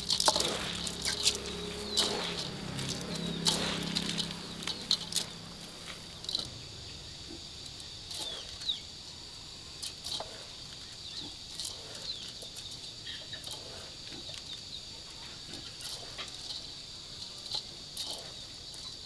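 Farmyard sounds: chickens flapping about with scattered short clicks and rustles, over a steady high-pitched insect drone. A low hum sits underneath for the first few seconds.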